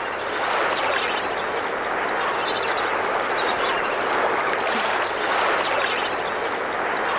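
Steady rushing water, an even hiss with no distinct events.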